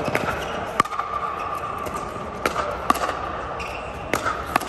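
Sharp pops of pickleball paddles striking a plastic pickleball, with the ball bouncing on the court, about six times in a rally over a steady background hum.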